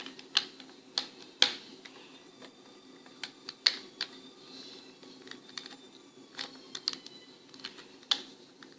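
Plastic Lego bricks clicking as they are handled, pulled apart and pressed together: a dozen or more sharp, irregular clicks over a faint steady hum.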